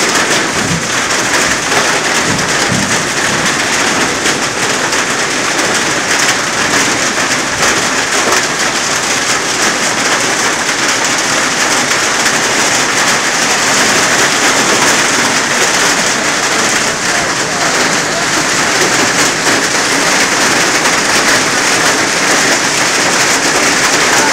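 Torrential rain pouring down onto pavement in a loud, steady hiss.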